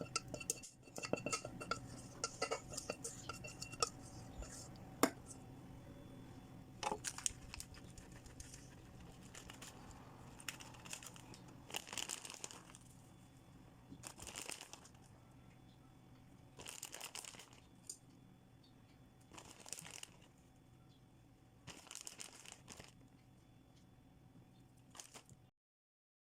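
Crinkling, tearing rustles of kitchen packaging in short strokes about every two and a half seconds, after a few light clinks near the start.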